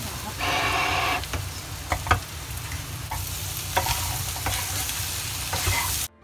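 Boiled potato chunks sizzling in hot oil and spices in a pan while being stirred with a wooden spatula, which scrapes and knocks against the pan now and then. The sound cuts off abruptly near the end.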